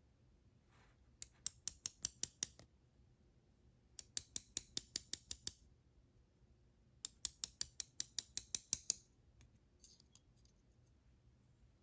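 A metal padlock being worked apart by hand: three runs of quick, evenly spaced sharp clicks, about six or seven a second, each run lasting a second and a half or so.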